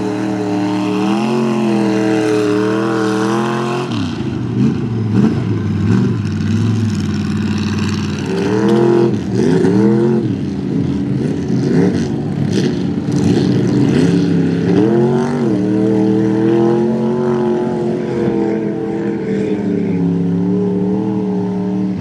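Big-block Ford V8 in a lifted OBS Ford pickup running at high revs as it bogs through mud, the engine note rising and falling again and again as the throttle is worked and the tyres spin.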